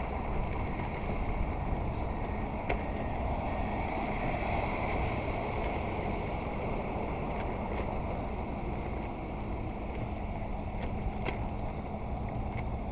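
Steady rumble of passing road traffic along a city street, with a few faint clicks.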